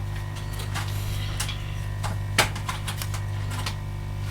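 Scattered light clicks and taps of tools and parts being handled on a repair bench, the loudest about two and a half seconds in, over a steady low hum.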